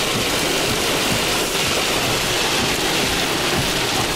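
Heavy rain and wind beating on a vehicle inside a tornado-producing supercell, a loud steady hiss with low gusty rumbling underneath.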